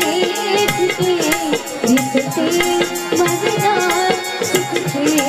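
A girl's voice singing a folk song to harmonium accompaniment, with a hand rattle shaken and drums struck in a steady rhythm.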